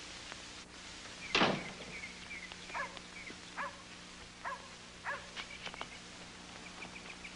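Small birds chirping in short, repeated calls, with a dog barking once about a second and a half in, over a faint steady hum.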